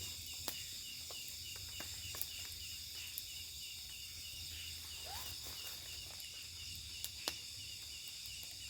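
Night-time forest insect chorus: a steady high buzzing of insects with a cricket-like chirp repeating evenly several times a second. A few sharp clicks and one short rising call about five seconds in.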